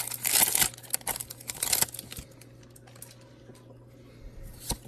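Foil wrapper of a Pokémon trading-card booster pack being torn open and crinkled, busy for about the first two seconds, then faint rustling with one sharp click near the end.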